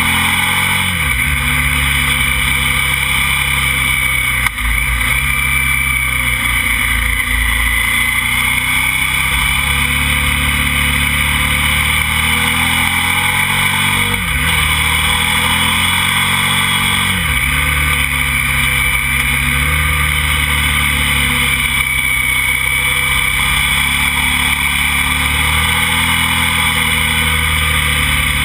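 KTM motorcycle engine running under way, heard from on board with wind and road noise. Its pitch drops sharply and climbs back about four times, around the first second, near 5 s, near 14 s and near 17 s.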